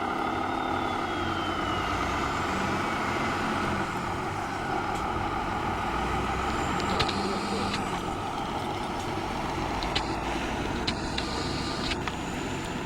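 Radio-controlled model truck running: a steady mechanical hum with a high motor whine that slowly falls in pitch, and a few sharp clicks near the end.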